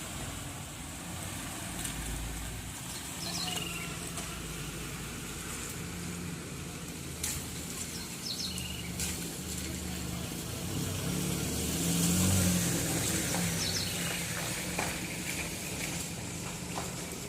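Motor vehicle engines running steadily on a flooded street, with one vehicle passing louder about twelve seconds in.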